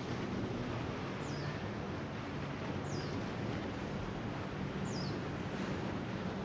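Steady outdoor wind noise with a faint low hum underneath, while a bird repeats a short high call that falls in pitch, about once every two seconds.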